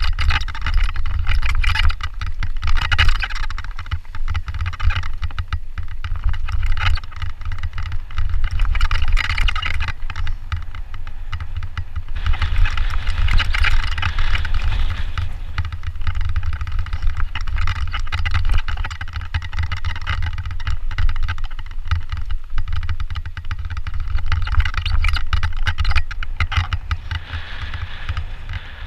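Mountain bike ridden fast down a dirt and gravel trail: a heavy wind rumble on the bike-mounted camera's microphone over the hiss of tyres on dirt and gravel, with constant clattering and rattling as the bike hits bumps. It eases a little near the end on smoother fire road.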